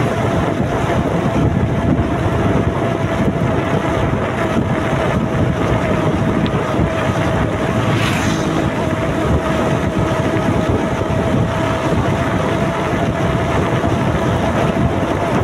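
Wind rushing over the microphone of a moving motorcycle, with its engine running steadily underneath and a steady whine. A brief hiss rises and fades about halfway through.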